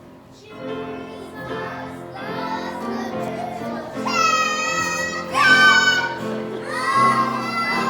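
A child singing loudly along with instrumental music, the voice reaching long, high held notes about four to six seconds in.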